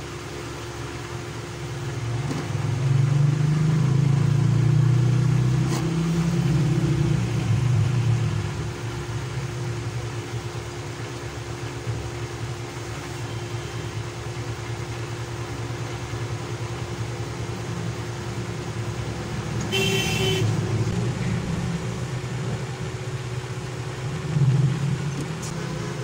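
Road traffic noise with a low rumble that swells and fades over about six seconds, then a brief vehicle horn toot about twenty seconds in, over a steady low hum.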